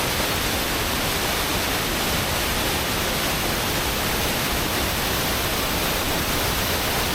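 Steady rush of water from the Kuang Si waterfall cascading down limestone tiers.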